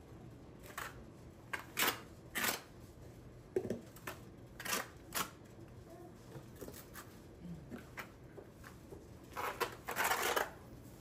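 Notched steel trowel scraping and combing through thinset mortar in short, irregular strokes, with a longer, louder scrape near the end.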